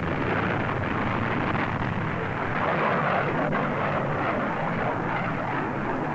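Engine noise of an SM-62 Snark cruise missile climbing away after launch: a steady rushing sound that eases slightly near the end.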